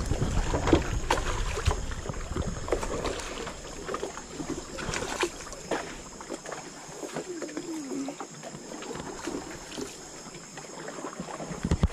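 Wooden canoe paddle dipping and pulling through river water, stroke after stroke, with irregular splashes and knocks and water washing past the wooden hull.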